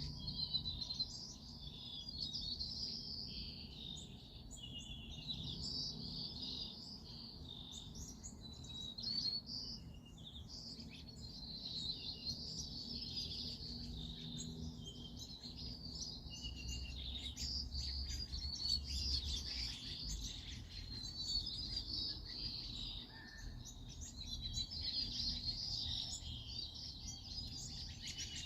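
Songbirds chirping and twittering without pause, many high, quick calls overlapping.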